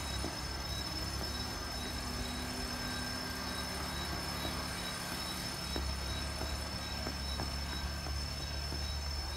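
Insects trilling steadily: one continuous high tone and a second one pulsing on and off, over a low rumble.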